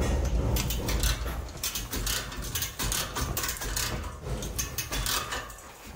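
Chain block being worked by hand to ease a heavy 185 mm² power cable into place: a rapid, irregular run of metallic clicks and rattles.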